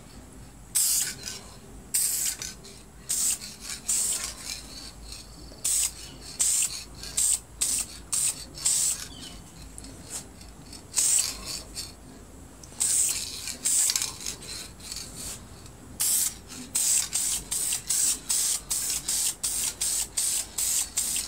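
Spray can of lacquer hissing in many short bursts as light coats go on. The bursts come in quick runs, closer together near the end.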